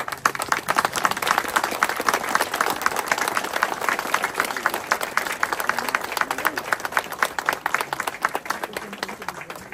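A crowd applauding: many hands clapping densely, starting abruptly and dying away near the end.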